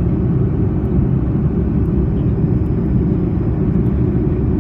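Airbus A330-300 jet engines running at climb power just after takeoff, heard inside the cabin as a steady, loud low rumble.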